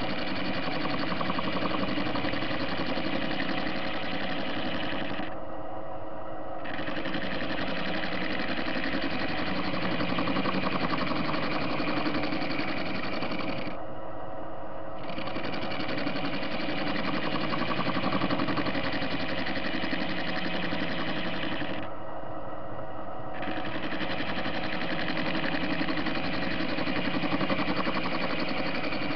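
Soviet-made TV-16 screw-cutting lathe running steadily.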